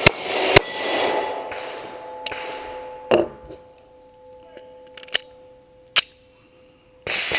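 Springfield Armory XD-S .45 ACP compact pistol firing a string of shots at steel targets: two quick shots near the start, then single shots spaced out at about three, five and six seconds in. Struck steel plates ring on in steady tones between the shots.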